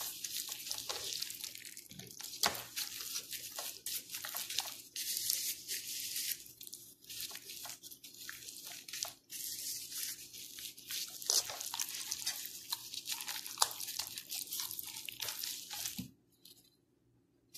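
Gloved hands rubbing a thick marinade into a raw whole chicken: wet squelching and smacking with many small clicks, stopping suddenly near the end.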